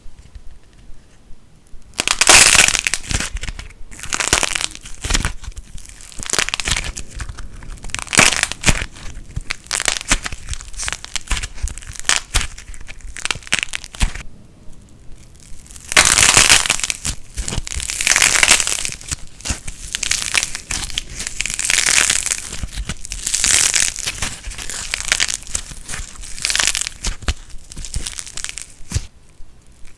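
Light plasticine squeezed and pressed by hand, crackling and crunching in repeated squeezes of a second or two each, beginning about two seconds in.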